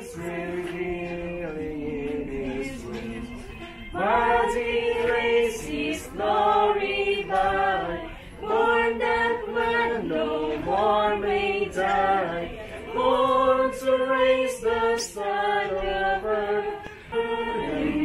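A group of voices singing together without accompaniment, in held phrases of a few seconds with short breaks between them.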